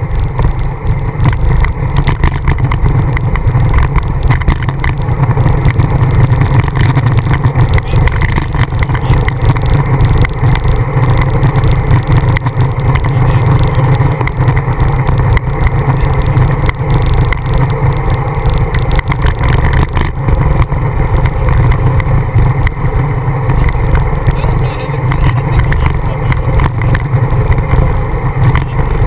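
Wind buffeting the microphone of a camera on a moving bicycle: a loud, steady, fluttering low rumble with road noise underneath.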